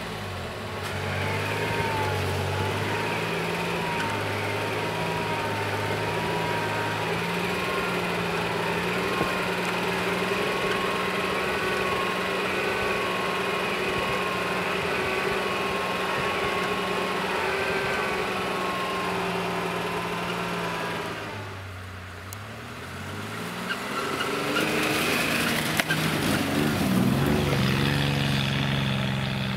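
Toyota 4Runner's engine held at high revs under load with its tyres spinning in deep snow. Near two-thirds of the way through the revs drop briefly, then rise again as the truck pulls out and drives off through the snow.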